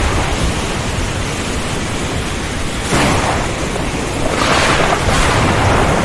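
Heavy rain with strong wind in a thunderstorm: a dense, steady rushing hiss that swells briefly about halfway through and again a second or so later.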